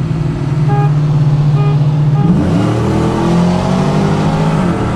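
Pickup truck engine at full throttle, heard from inside the cab. Engine speed holds for the first two seconds, then the automatic transmission kicks down with a sudden jump in pitch and the revs climb. The next upshift comes near the end.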